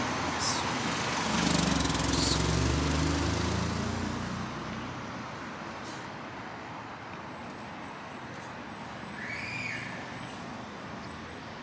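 Street traffic: a motor vehicle's engine runs close by for the first few seconds, then fades into a steady low traffic hum, with one brief high chirp about nine seconds in.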